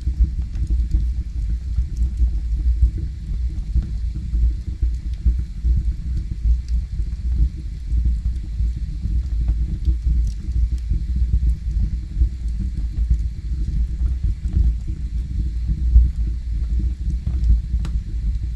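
Wood fire burning in a fireplace: a steady low rumble from the burning logs, with faint scattered crackles.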